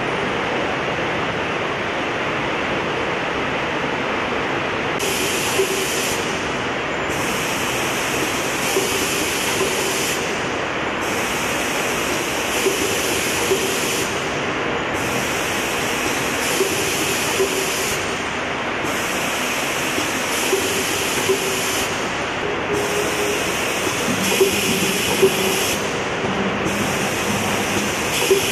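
Fully automatic foil transfer machine running with a steady mechanical noise. From about five seconds in, a hiss comes and goes about every four seconds, with a light click in most cycles, as the machine works through its automatic cycle.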